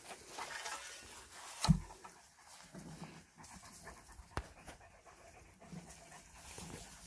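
Close panting breaths, with one loud thump about a second and a half in and a sharp click a little after the middle.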